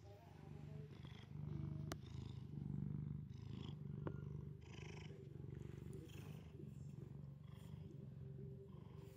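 A domestic cat purring, the low purr pulsing in and out with each breath.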